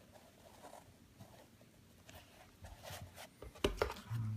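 Faint rubbing and rustling of a sneaker and its mesh upper being handled, with a couple of sharp knocks about three and a half seconds in.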